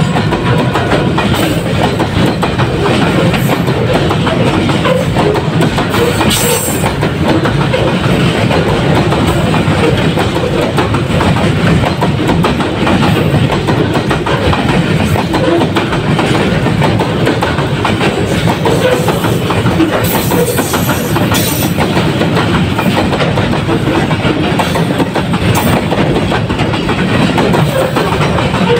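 Container freight wagons rolling past close by at speed: a steady rumble and clatter of steel wheels over the rail joints, with a few short high-pitched squeaks about six seconds in and again around twenty seconds in.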